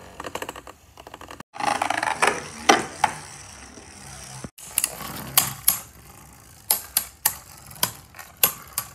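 Beyblade Burst spinning tops rattling over the floor of a plastic stadium, with a string of sharp clacks at irregular intervals in the second half as the two tops strike each other.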